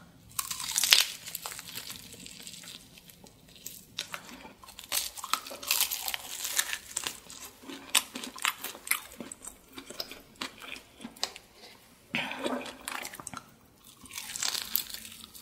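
Crunchy bites into a crispy fried chicken drumstick with wet chewing and crackling of the fried coating: one bite near the start and another near the end, with chewing crunches in between.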